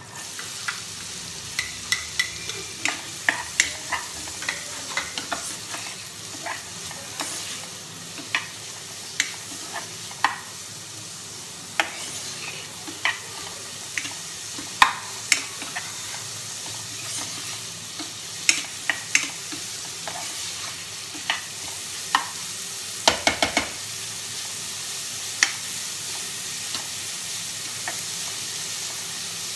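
Chopped onions sizzling in hot oil in a pan, with a steady hiss that rises as they go in. A plastic spoon stirs them, clicking and scraping against the pan, with a quick run of taps about two-thirds of the way through.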